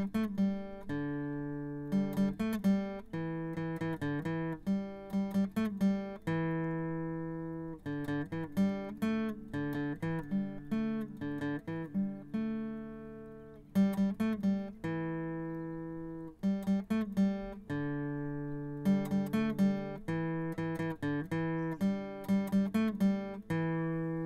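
Solo acoustic guitar music: quick runs of plucked notes alternating with long notes left ringing out and fading.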